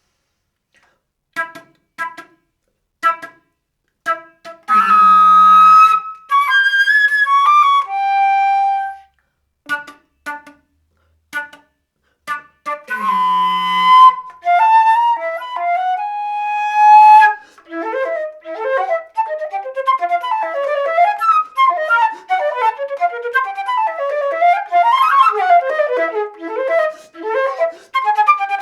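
Solo concert flute playing a contemporary piece: a few short detached notes, then loud held notes edged with breath noise. About two-thirds of the way in, it breaks into a fast, continuous flurry of notes that runs on.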